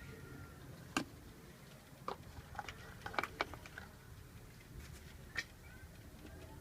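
About six light, separate clicks and taps from handling the oil bottle and filler while motor oil is added to an Onan motorhome generator that is switched off.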